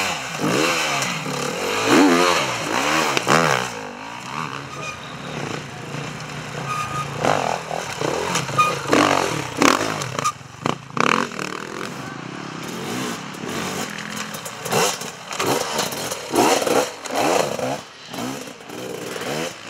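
Enduro dirt bike engines revving, the pitch climbing and dropping over and over as the throttle is opened and shut, with a run of sharp bursts of revs later on.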